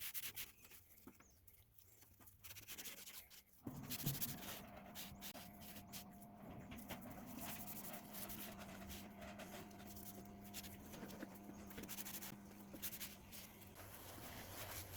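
Faint rubbing, scratching and small clicks of hand-cleaning dirt and hair off a 3D printer. About four seconds in, a faint steady hum starts and runs on under it.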